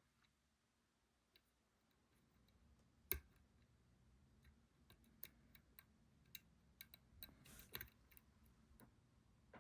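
Faint clicks of a lock pick working the pins inside a lock cylinder, with one sharper click about three seconds in and a run of small ticks near the end.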